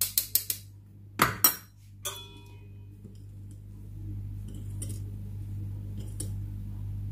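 Kitchen utensils knocking against a mixing bowl while genoise batter is being made: a quick run of taps, two loud knocks, then a ringing clink. After that only a low steady hum.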